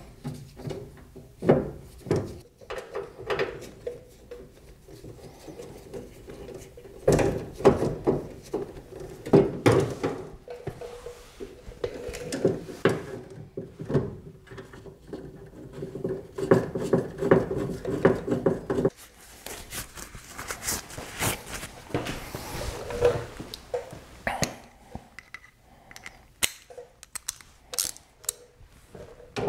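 Hand tools working the 10 mm bolts of a truck door's window track into place: irregular metallic clicks, taps and knocks against the door, busiest in the middle stretch.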